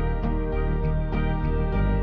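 Background music: a gentle, steady instrumental track with sustained notes over a low bass line.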